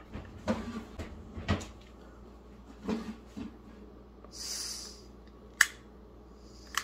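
A few light knocks and handling of a small butane camp stove, a brief hiss about four and a half seconds in, then two sharp clicks of a long-nosed lighter being triggered near the end as the burner is being lit.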